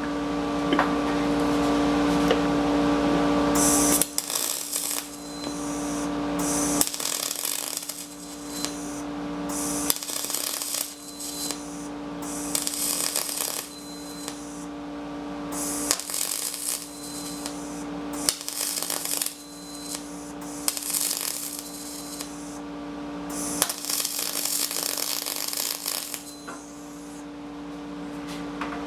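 MIG welding aluminum with a spool gun (Thermal Arc 211i welder with a Tweco spool gun): a series of short weld runs, each a few seconds of crackling arc hiss with brief pauses between, over a steady machine hum. These are the beads patching a flat-stock plate onto an aluminum ATV skid plate.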